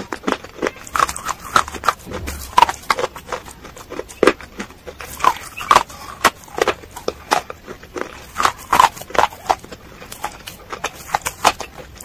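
Close-up crunching and chewing of dry grey clay chunks in the mouth: sharp, irregular crunches several times a second.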